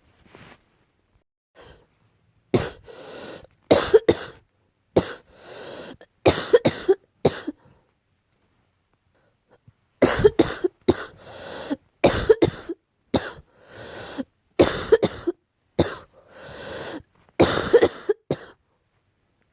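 A person's barking cough in repeated fits: a run of sharp coughs, a pause of about two seconds, then a longer run. It is an allergic cough, which the uploader puts down to a cat allergy.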